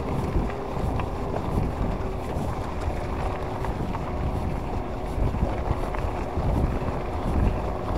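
Wind buffeting the microphone over the rumble and crunch of an e-bike's tyres rolling on a gravel cycle path, with a faint steady whine.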